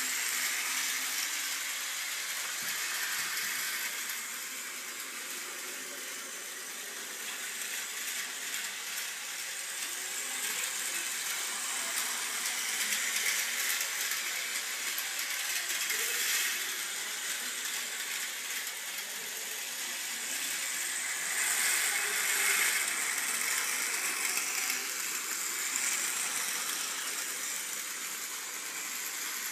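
Battery-powered Plarail toy train running on plastic track: a steady mechanical rattle and hiss that swells and fades every few seconds.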